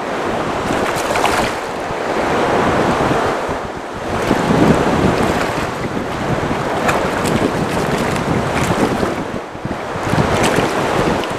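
Wind blowing across the microphone over open sea, with waves lapping, swelling and easing every few seconds.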